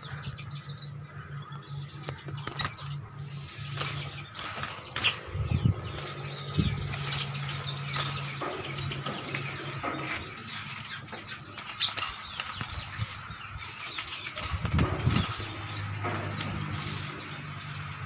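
Small birds flapping and scrabbling against a wire cage, with many sharp clicks of wings and feet striking the wire, as they fight through the bars. A steady low hum runs underneath.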